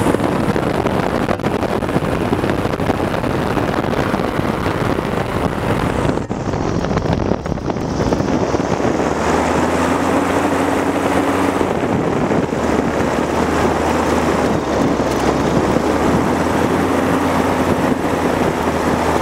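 Powered parachute's engine and propeller running as the cart rolls over a grass strip, under heavy wind noise on the microphone. About nine seconds in, a steady engine hum stands out more clearly.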